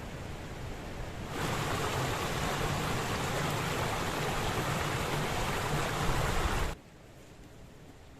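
Strong wind rushing through pine trees and buffeting the microphone as a steady noise. It jumps louder about a second and a half in, then drops off abruptly near the end.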